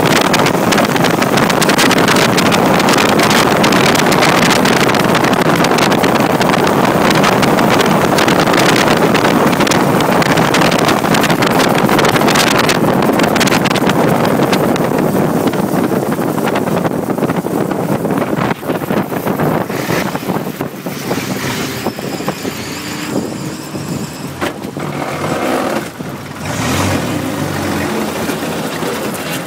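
Brasier racing car's engine running hard at speed, loud and noisy. About halfway through it eases and quietens as the car slows, and near the end the engine note is heard rising again.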